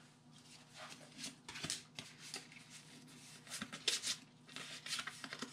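Pokémon trading cards sliding and flicking against each other in the hands as a freshly opened booster pack is sorted: faint, scattered soft clicks and rubs.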